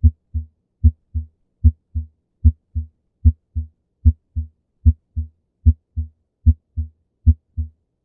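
Heart sounds over the mitral valve area heard through a stethoscope: a regular lub-dub at about 75 beats a minute. The first heart sound is accented, louder than the second, as expected at the mitral area.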